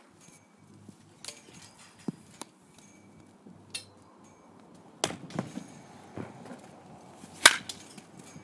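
Sharp cracks of a baseball bat striking balls, loudest about five seconds in and again about seven and a half seconds in, with smaller knocks between.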